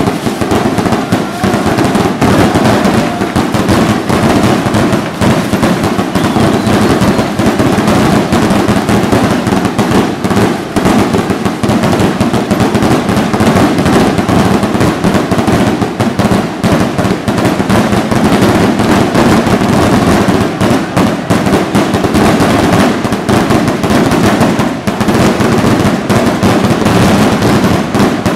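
A dense barrage of fireworks rockets going off together, a continuous rattle of bangs and crackles with no pauses.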